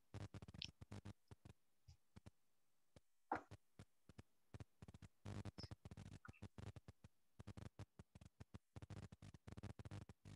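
Near silence broken by faint, irregular clicks and crackles, with one slightly louder click about three seconds in.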